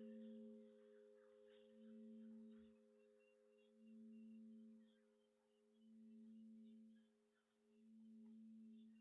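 Very faint, dying ring of a struck bell: a few steady tones that swell and fade about every two seconds.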